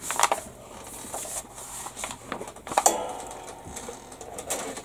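Paper rustling with a few light clicks and knocks as the kit's instruction booklet is handled and shifted on the cutting mat; the sharpest knock comes near the middle, with a brief faint ring after it.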